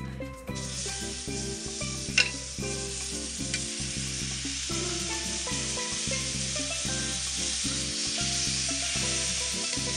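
Melted butter sizzling on a hot griddle over a grill, with one sharp click about two seconds in. The sizzle swells a little near the end as a hamburger patty is set down on the griddle.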